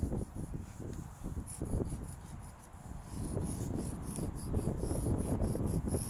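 Stick of chalk rubbing and scraping in quick repeated strokes, with wind rumbling on the microphone; the strokes ease off briefly about halfway through.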